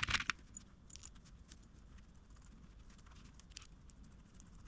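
Faint, scattered clicks and clinks of small metal parts being handled, with a short clatter right at the start.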